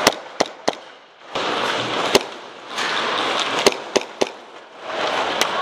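Airsoft gunfire: about eight sharp pops at irregular spacing, several in quick runs of two or three, over a rushing noise that rises and falls away several times.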